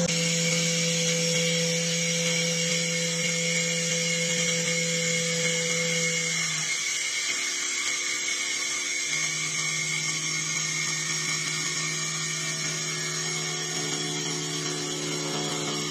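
CA-1530 CNC wood lathe turning a wooden leg. The spindle and drive run with a steady whine while the cutter shaves the spinning blank. A low hum drops out for about two seconds midway, then returns.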